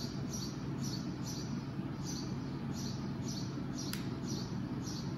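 A short, high-pitched chirp repeating steadily about twice a second over a continuous low hum, with a single sharp click about four seconds in.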